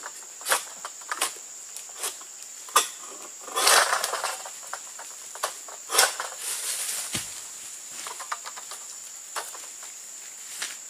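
An egrek, a hooked harvesting sickle on a long pole, cuts through an oil palm fruit bunch's stalk high in the crown, with repeated sharp clicks and scrapes. A loud crackling rustle comes about four seconds in and another at six as the bunch tears free, then a low thud about a second later. A steady high insect whine runs underneath.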